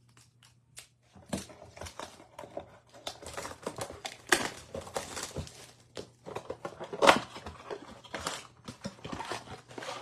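Plastic wrap crinkling and tearing as a sealed box of trading card packs is unwrapped and opened, with irregular clicks and rustles of the cardboard and packs being handled; the loudest crackle comes about seven seconds in.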